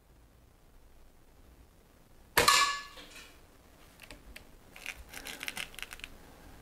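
A single shot from a Daystate Red Wolf .177 PCP air rifle about two seconds in: a sharp crack with a short metallic ring. About two seconds later comes a run of quieter quick clicks and rattles from the rifle being handled.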